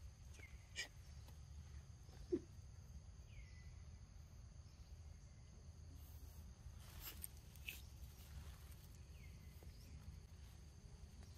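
Faint outdoor ambience: a steady high insect drone under a low rumble, with a few short falling chirps and a single sharp click about two seconds in.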